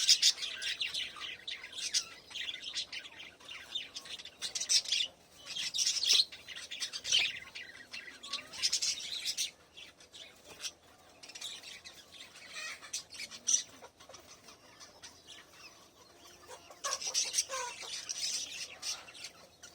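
Small pet parrots chirping and chattering in rapid, high-pitched bursts of many overlapping calls. The calls come in clusters, thin out for a few seconds past the middle, and pick up again near the end.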